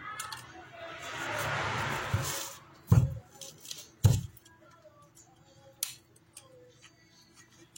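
Small parts of an opened angle grinder being handled on a bench: a rustle, then two sharp knocks about a second apart and a lighter click.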